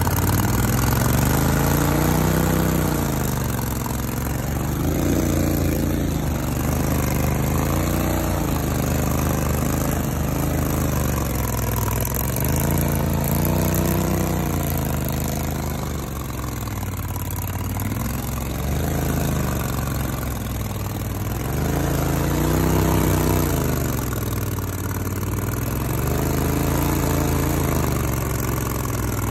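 Gator-Tail XD surface-drive mud motor, its air-cooled Briggs & Stratton Vanguard V-twin running under heavy load while the prop churns thick mud and vegetation. The engine pitch rises and falls over and over, about every two to three seconds, as it is revved to push the boat through the mud.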